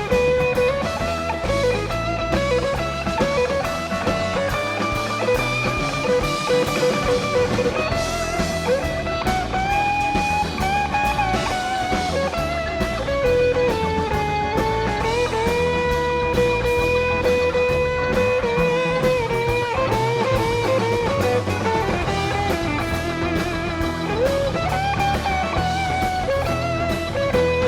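Live jam-band rock music: an electric guitar plays long, held lead lines with bends over a full band.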